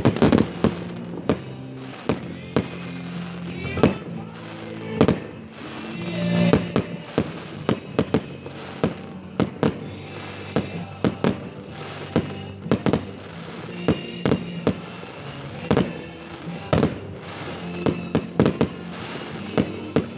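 Aerial fireworks shells bursting in an irregular series of sharp bangs, one to two a second with some rapid clusters. Music plays underneath.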